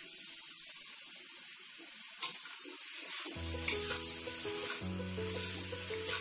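Noodles and vegetables sizzling in a hot steel kadai as they are stirred and tossed with spoons, with a few sharp clinks of spoon on pan. Background music comes in about halfway through.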